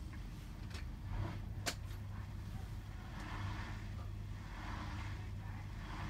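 Hotpoint WMFUG 942 front-loading washing machine tumbling its load in water: a steady motor hum with water and laundry sloshing in the drum in swells about every second and a half. A sharp click comes just under two seconds in.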